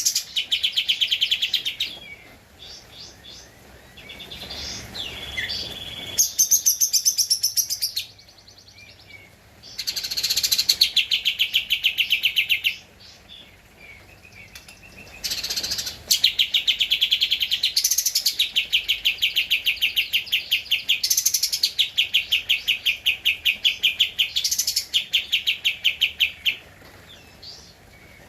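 Kapas tembak songbird singing in long, rapid chattering trills of fast repeated notes, in bursts of a few seconds with short pauses. The longest trill runs for about ten seconds in the second half.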